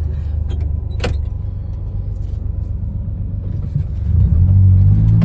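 A motor vehicle driving, a steady low rumble, with a single sharp click about a second in; the rumble grows louder near the end.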